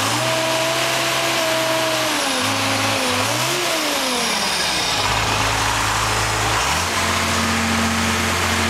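Vermeer BC2000 brush chipper's engine running, its speed dipping and rising a few times in the first few seconds, then holding a steady run.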